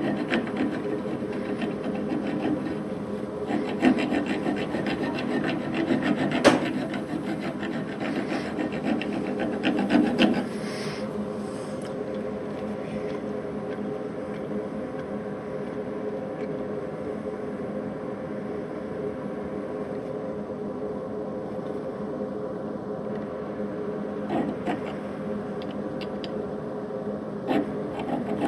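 Hand file rasping against the threaded end of a steel spindle turning in an Atlas metal lathe, over the lathe's steady running hum. The filing is busiest in the first ten seconds or so, with a few sharp knocks; after that mostly the lathe runs on, with a few clicks near the end.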